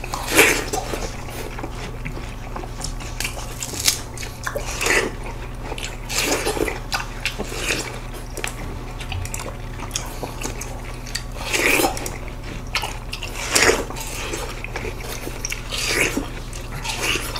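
Biting into and chewing slices of seedless watermelon: irregular wet bites and mouth sounds every second or two, over a steady low hum.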